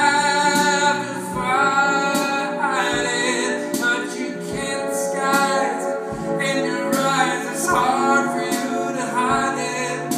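Live solo performance of a slow song: a man singing into a microphone over his own electric guitar. A low thud keeps the beat about every second and a half.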